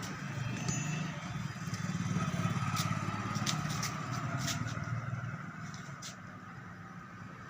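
A motor vehicle's engine, most likely passing by, that swells to a peak a couple of seconds in and then fades. Several light clicks are heard in the middle.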